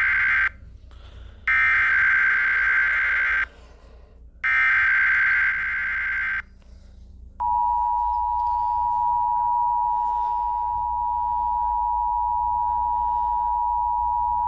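Emergency Alert System header and alarm: three buzzing bursts of SAME digital header data, each about two seconds long with a second's gap between, then from about seven seconds in a steady, unbroken EAS attention tone. The sequence signals that a severe thunderstorm watch alert follows.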